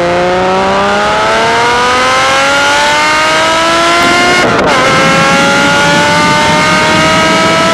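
2007 Porsche Cayman S's 3.4-litre flat-six, heard close to the tailpipes through its custom de-catted exhaust, pulling hard with the revs climbing steadily. About four and a half seconds in, a quick upshift briefly drops the revs, then it climbs again through the next gear.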